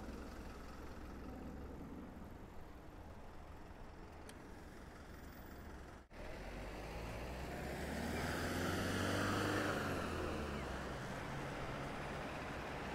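Road traffic heard from a bicycle: a steady low hum of street noise, then, after a brief gap about six seconds in, a motor vehicle passing close, swelling to its loudest around nine seconds and fading.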